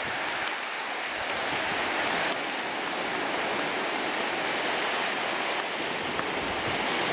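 Steady rush of falling water from a 60-metre sea-cliff waterfall plunging straight into the sea, mixed with surf washing over the rocks below.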